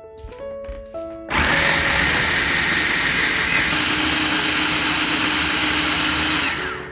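Hamilton Beach food processor switched on about a second in, its motor and blade running loud and steady as it purées chili flakes, pear and garlic into a wet paste, then switched off near the end.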